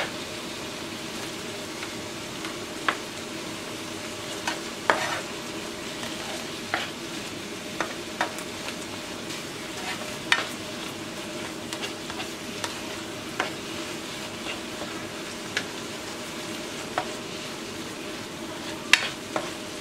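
Ground beef and onion sizzling steadily as they brown in a nonstick frying pan. A spatula stirs and scrapes through the meat, giving short clicks against the pan at irregular moments.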